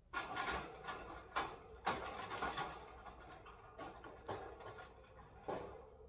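A run of sharp knocks and clatter over a rustling noise, starting suddenly, then thinning to single knocks about every half second.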